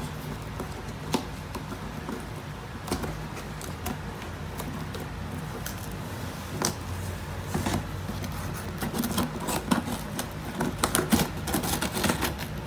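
Small scissors snipping and scraping through packing tape along a cardboard box seam: scattered clicks and crackles that come faster near the end.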